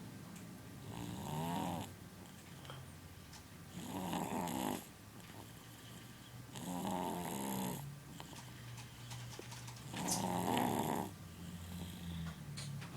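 Loud snoring from a sleeper: four snores about three seconds apart, each lasting about a second, with a fainter low breathing sound between them.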